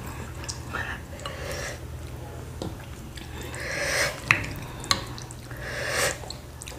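Sauced noodles being stirred and tossed with wooden utensils in a ceramic bowl, making soft wet swishes in a couple of swells. There are two sharp clicks of a utensil on the bowl a little past halfway.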